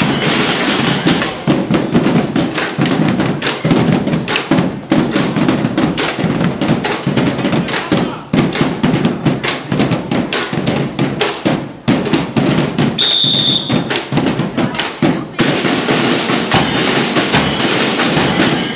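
Marching band percussion section drumming a fast, dense rhythm on bass drums and snare drums. A short high steady tone sounds about two-thirds of the way through, and the drumming stops at the very end.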